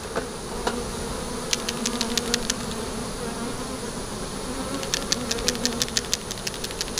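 Honeybees buzzing in a steady hum around an open hive. Two short runs of rapid ticking, about ten ticks a second, come about a second and a half in and again near the end.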